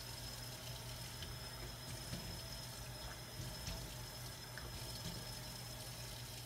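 Kitchen tap running in a steady stream while a plastic cup is rinsed out, cutting off at the end.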